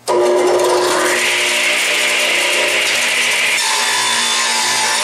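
A 10-inch radial arm saw switches on suddenly and runs steadily while its blade cuts through a wooden board; the cutting sound rises about a second in and eases a little after three and a half seconds.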